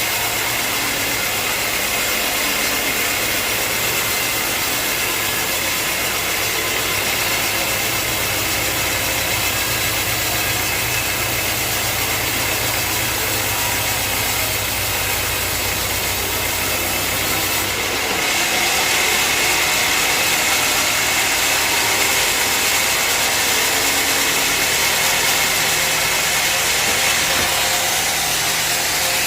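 Sawmill machinery running steadily. About eighteen seconds in the low hum drops out and the sound turns slightly louder and hissier.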